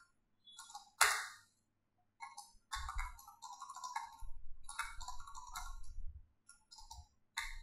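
Computer keyboard typing in quick runs of keystrokes, with one louder key click about a second in and a short pause before the longest run.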